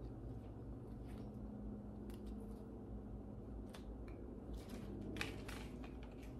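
Soft rustling and light handling noises as baby clothes and shoes are picked up and sorted, over a steady low room hum; the rustling is loudest about five seconds in.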